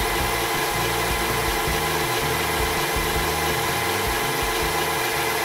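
Cordless drill running steadily, turning the glass-faced wooden sharpening disc: an even motor hum and whir that holds the same pitch throughout.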